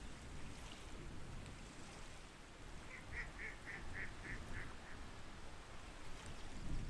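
A waterfowl calls a quick run of about seven short notes, about four a second, starting about three seconds in, over a steady low outdoor rumble.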